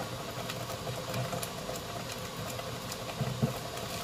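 Steady mechanical hum with a few soft pops from thick tomato sauce simmering in a pot, and a brief low knock a little after three seconds in.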